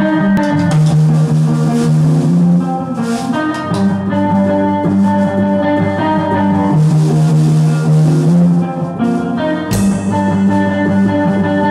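Rock band rehearsing at full volume: electric guitars playing sustained chords over a drum kit, with a cymbal crash near the end.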